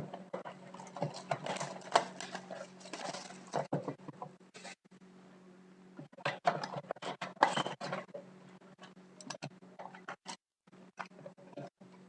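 Packaging of a hockey card box being torn and handled by hand: irregular crinkling and rustling in bursts with short pauses, over a steady low hum.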